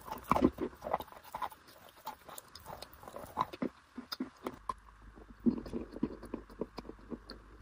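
Close-miked crunching and chewing of dry, crumbly chalk-like chunks: a string of sharp, crisp crunches. About halfway through, crunching of harder beige clay-like chunks begins over a low hum.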